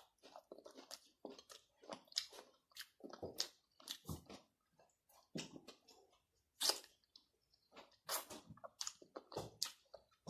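Close-up chewing and crunching of food, a string of short irregular crunches and clicks.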